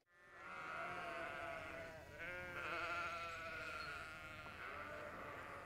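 A lamb bleating: two long, wavering calls, the second starting about two seconds in.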